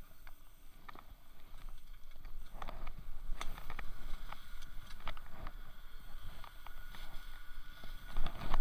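Skis or a board sliding and scraping over hard-packed groomed snow as the rider sets off downhill, with many short scrapes and crunches over a hiss. It gets louder as speed builds, most of all near the end.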